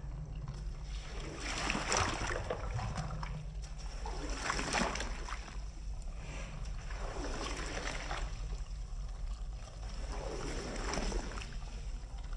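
Slow, rhythmic wet swishing strokes on a rug being washed, one about every three seconds, over a steady low hum.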